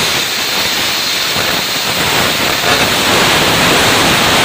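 Taiwan Power 40 A air plasma cutter cutting sheet steel: the arc and compressed-air jet make a loud, steady hiss. The operator says right afterwards that this cut was moved too slowly, so the arc popped and ran on air.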